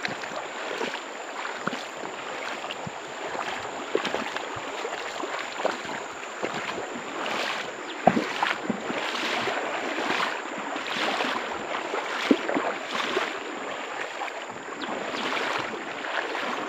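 Shallow stream running over stones: a steady rush of moving water, with a few faint clicks and knocks.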